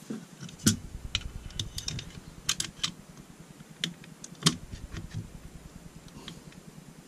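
Small metal clicks and taps as an AR-15 safety selector is worked into the lower receiver with a screwdriver and hand pressure. The clicks come irregularly, the sharpest about two-thirds of a second and four and a half seconds in.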